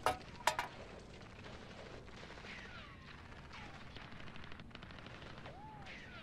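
Empty aluminium drink can clattering onto a wooden floor: two sharp metallic hits with a brief ring in the first half-second. Then low room tone with a few faint falling whistle-like glides.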